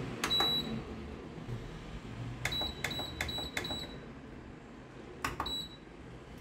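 Buttons on a Teka dishwasher's control panel being pressed to set and start the wash. Each press gives a soft click and a short high beep: once near the start, four times in quick succession around the middle, and once more near the end.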